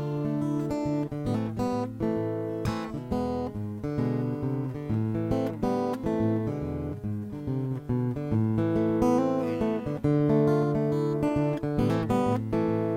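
Acoustic guitar playing an instrumental piece: a continuous run of plucked notes and chords.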